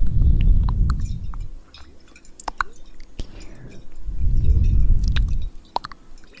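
Close-miked ASMR breathing: two slow breaths into the microphone, about four seconds apart. Scattered light clicks and taps run through and between them.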